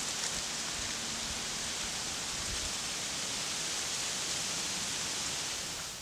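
Steady rushing outdoor ambient noise, an even hiss with no distinct events, which drops away abruptly near the end.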